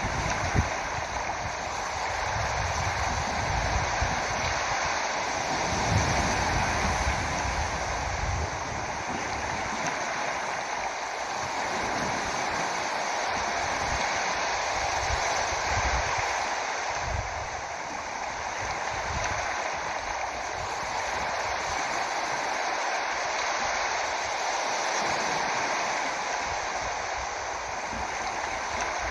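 Steady rushing of water, even and unbroken, with low rumbles of wind on the microphone coming and going.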